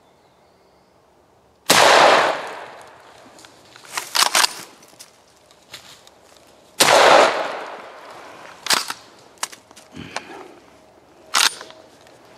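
Two shotgun blasts about five seconds apart, each ringing out for about a second, with shorter sharp knocks between and after them.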